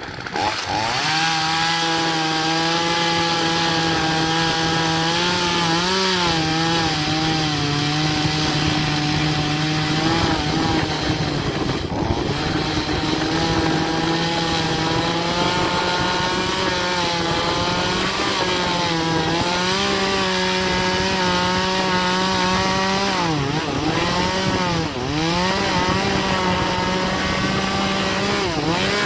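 Troy-Bilt TB4218 42cc two-stroke chainsaw revving up from idle right at the start and running at high speed while cutting into oak, its pitch wobbling. Near the end the engine speed dips several times as the chain loads up in the wood.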